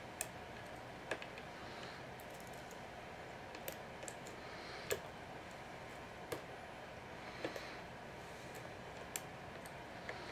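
Metal hook pick working the pin stacks of a Master Lock No. 570 padlock under light tension from a tension wrench: a dozen or so small, irregularly spaced clicks as the pick probes the pins, searching for the first binding pin.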